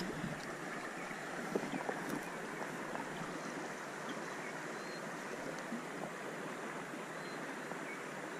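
Trout stream water running steadily, with one sharp click at the very start.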